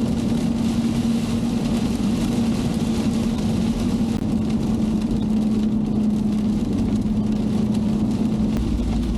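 Mercedes Sprinter van driving along the road: steady engine and road noise with a constant low drone.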